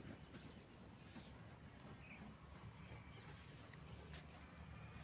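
Insects chirping faintly: a high chirp repeating about twice a second over a steady high-pitched trill.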